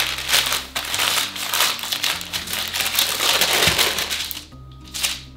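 Parchment paper crinkling and rustling as it is folded and pressed around a lump of pie-crust dough, stopping shortly before the end. Soft background music with sustained low notes underneath.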